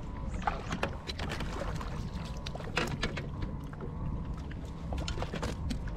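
Water lapping against a small fishing boat's hull under a steady low rumble, with scattered sharp clicks and knocks of gear moving in the boat and a faint steady high tone through the middle.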